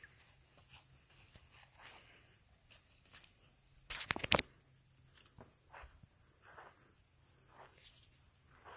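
Crickets chirring in a steady high-pitched drone, with two sharp clicks about four seconds in.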